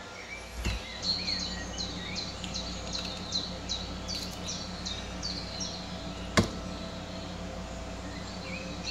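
An egg cracked with a dull knock against the rim of a bowl, followed by a small bird chirping over and over, about two short high chirps a second, for several seconds. A single sharp click about six seconds in is the loudest sound.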